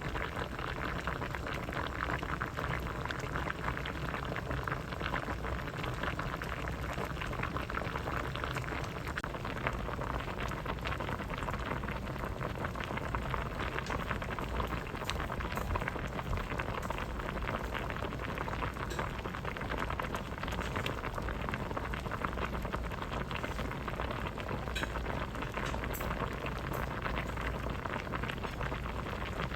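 Vegetable soup boiling in a pot: steady, dense bubbling with a constant fine crackle of bursting bubbles.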